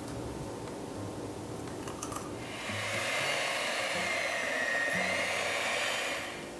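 Electric hand mixer running steadily, its beaters whipping a thin creamy mixture in a glass bowl; it starts about two and a half seconds in and stops shortly before the end.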